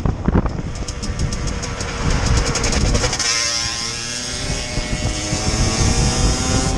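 Beta motorcycle riding along, its engine and road and wind noise making a steady rumble; about three seconds in the engine note rises as it accelerates.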